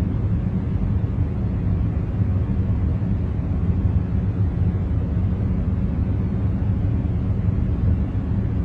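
A steady noise track played for concentration, an even hiss heavy in the low end with little treble, unchanging throughout.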